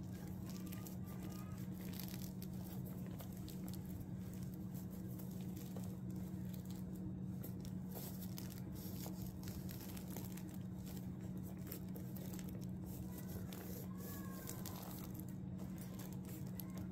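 Nylon tent fabric rustling and crinkling under hands pressing and smoothing a stove jack patch down onto silicone, over a steady low hum.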